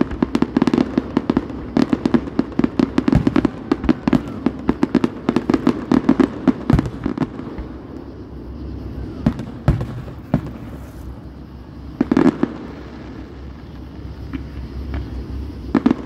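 Fireworks display: a dense run of bangs and crackling from aerial shells bursting, thinning out after about seven seconds to scattered pops, with another short cluster of bangs about twelve seconds in and again near the end.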